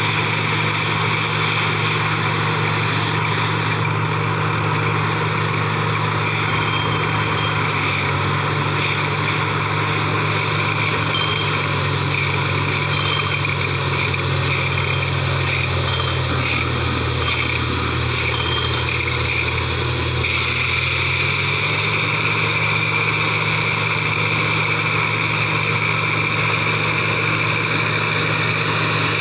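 Diesel engine and compressor of a truck-mounted borewell drilling rig running steadily under load, with a constant hiss. The engine note shifts slightly about a quarter of the way in and again about two-thirds in, and the hiss gets louder at the second shift.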